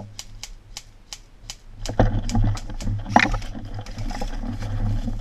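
Airsoft gun firing a rapid string of shots, sharp regular clicks about four a second, for the first two seconds or so. Then the rustle and crunch of a player pushing through undergrowth, with one louder burst of noise about three seconds in.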